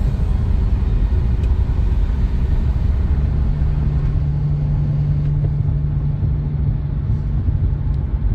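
Car driving on the road, heard from inside the cabin: a steady low rumble of tyre and engine noise, with a steady low hum coming in about three seconds in.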